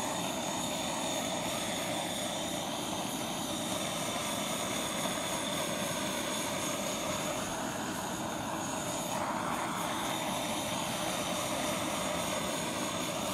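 Handheld blow torch flame hissing steadily as it is swept over wet acrylic pour paint.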